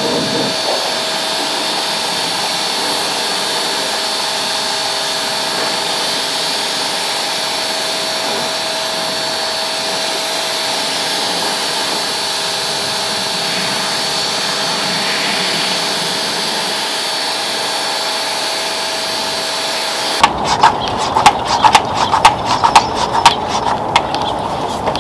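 Pressure washer running steadily with a faint motor whine while its spray rinses the engine bay and hood underside. About twenty seconds in, this gives way to close, uneven crackling spatter of spray hitting the engine's plastic air-box cover.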